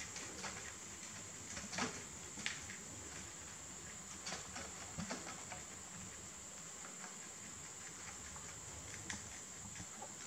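Rabbits chewing fresh basil leaves: faint, irregular little crunches and clicks, a few louder than the rest, over a steady high-pitched hiss.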